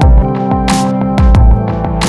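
Electronic background music with a steady beat of low drum thumps and sharp cymbal-like hits over held synth notes.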